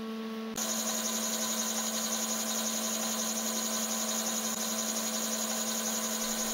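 Bridgeport-style milling machine running steadily, its spindle turning a 5 mm carbide end mill. The sound gets louder and fuller about half a second in.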